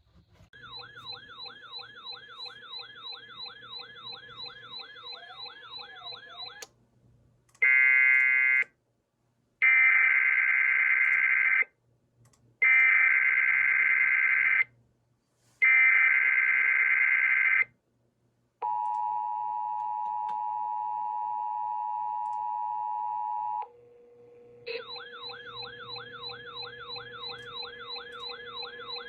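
A faint siren-like warbling tone, then an Emergency Alert System header: four loud, buzzy bursts of SAME data tones, the first short and the other three about two seconds each. These are followed by the steady two-tone EAS attention signal for about five seconds, and the warbling tone comes back near the end.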